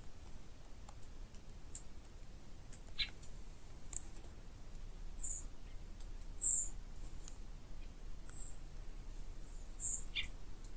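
Summer woodland ambience: scattered short, high-pitched bird chirps every second or two, with a couple of brief lower calls, over a low steady background hiss and a few faint clicks.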